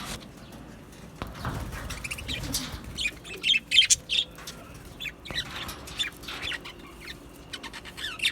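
Budgerigars chirping and chattering: a busy run of many short, quick chirps and warbles, overlapping one another, loudest around the middle.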